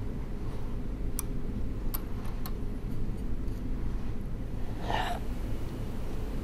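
A few light clicks of small objects being handled on a table, over a steady low hum, with a short hissing burst about five seconds in.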